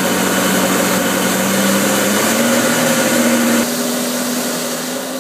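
Tractor engine running steadily while the slurry tanker behind it sprays from its rear spreader, a dense hiss over the engine note. The engine pitch steps up slightly about two seconds in, and the sound drops abruptly in level about three and a half seconds in.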